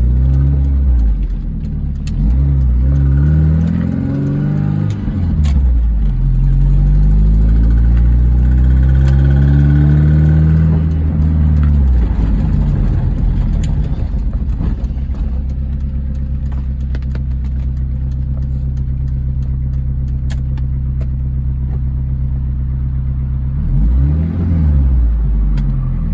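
1998 MG F VVC's 1.8 K-series four-cylinder engine revved up and back down twice, then idling steadily, with quick blips of the throttle near the end. A light ticking runs over it, and a faint high squeal comes in as the revs rise: the uploader traced this to an exhaust manifold leak from loose manifold bolts.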